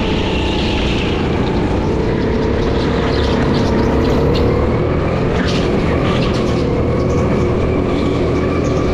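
Go-kart engine running steadily at racing speed, its pitch climbing slowly in the second half as it accelerates.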